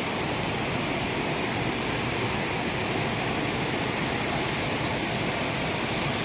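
Small forest waterfall and stream rushing over rocks: a steady, unbroken water noise.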